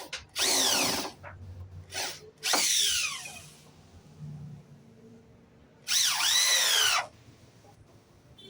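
Electric power drill run in short bursts: three main runs of about a second each, with shorter blips between. Its whine falls in pitch as the motor slows.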